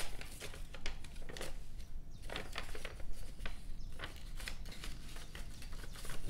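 Sheet of paper rustling and crinkling as it is handled, a run of irregular small crackles.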